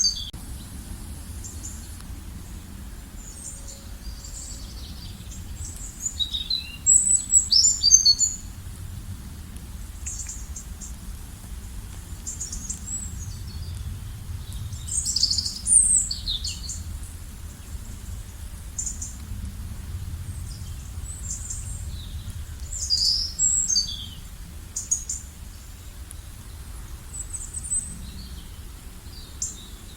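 Songbirds chirping and trilling in short bursts of high, quick notes, the loudest clusters about seven and fifteen seconds in, over a steady low background rumble.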